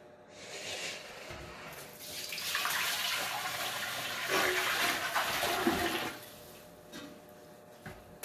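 Maple sap poured from a 5-gallon bucket through a filter bag into a stainless steel stockpot: a splashing stream that builds about two seconds in and tapers off around six seconds. The filter is catching the chunks floating in the raw sap.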